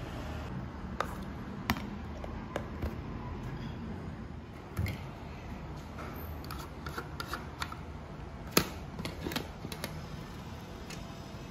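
Scattered clicks and metallic knocks of a stainless-steel pressure cooker's lid being unlatched at the handle and turned off the pot, with a sharp click about eight and a half seconds in, over a steady low background noise.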